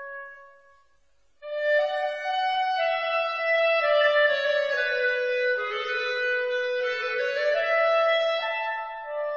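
Instrumental background music, a slow melody of held notes. One piece fades out at the start, there is a short gap, and a new piece begins sharply about a second and a half in.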